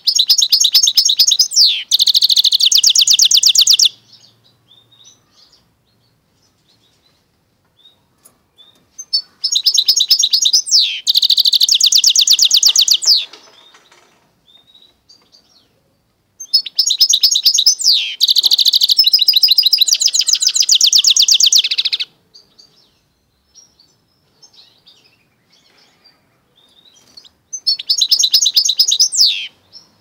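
Goldfinch × canary mule (hybrid) singing: four loud bursts of song, each a fast, high trill with a quick falling sweep, with pauses of a few seconds between them.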